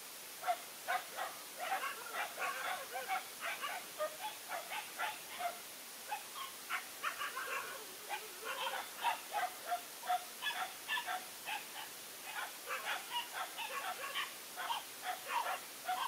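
Dogs barking and yipping in short, quick calls, several a second, with a couple of brief pauses.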